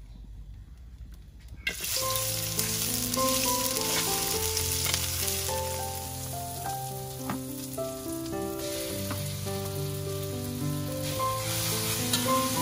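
Ground pork hitting hot oil in a wok: a loud, steady sizzle starts suddenly about two seconds in, and a spatula scrapes the wok now and then. Instrumental background music with slowly changing notes plays underneath.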